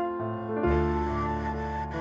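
Instrumental background music: sustained keyboard-like notes changing every half-second or so, with a low bass note coming in about half a second in.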